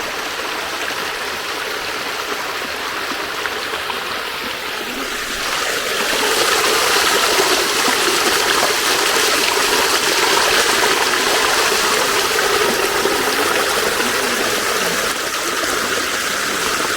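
Small waterfall cascading over rocks into a pool, a steady rush of water that gets louder about six seconds in.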